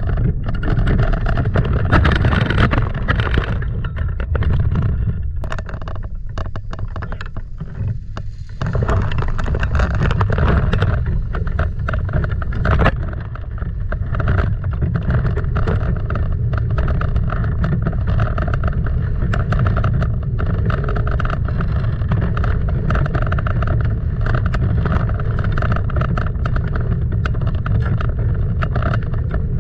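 Wind buffeting the microphone of a camera mounted on a moving hang glider, a loud, dense rumble that eases briefly twice. A steady droning hum joins it from about halfway through.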